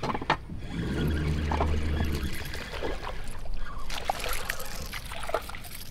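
Water splashing as a hooked bass is reeled up to the side of a john boat, with a few light knocks.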